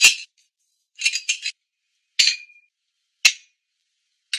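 A handful of short, sharp clinks and clicks of glass beer bottles and dishes being handled, one with a brief ring after it, and the rest cut off cleanly into silence.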